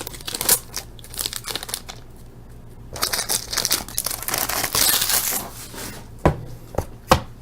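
Foil wrapper of a hockey card pack being torn open and crinkled, in crackly stretches, followed by three sharp taps near the end as the cards are handled.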